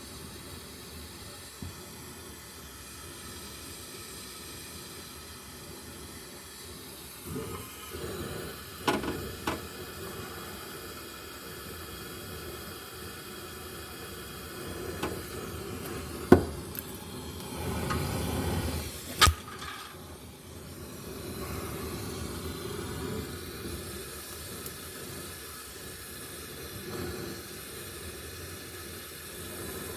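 Gas torch burning on a low flame with a steady hiss, heating a seized exhaust manifold bolt to free it. Sharp metal clicks and knocks come now and then through the middle of the stretch, with a short swell of louder noise among them.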